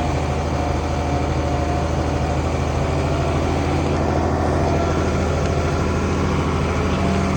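International Harvester 1566 tractor's turbocharged six-cylinder diesel running steadily with an even drone while working a field cultivator.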